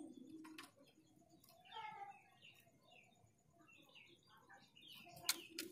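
Faint, scattered chirps and short twittering calls of a female Javan grey-throated white-eye (opior jawa), a female's call to a male. A sharp click comes about half a second in and a louder one near the end.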